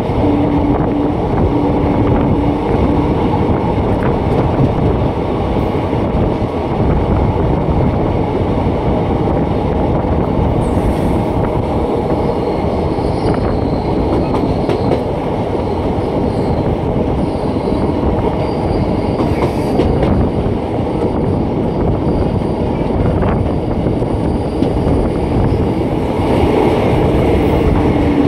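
Passenger train coach running along the track, heard from its open doorway: a steady rumble of wheels on rails with clickety-clack over the rail joints. A low tone comes and goes a few times in the first three seconds.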